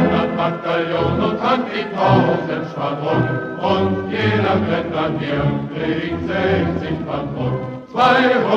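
Choir singing a German Landsknecht or peasant song in chorus, with a brief break just before the end as a new phrase begins.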